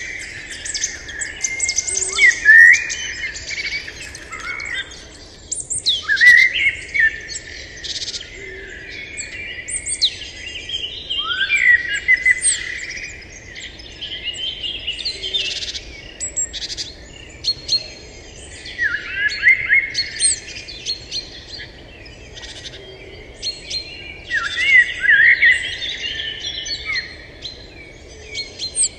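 Birds chirping and calling in bursts of quick rising chirps and whistles every few seconds, over a faint steady outdoor background.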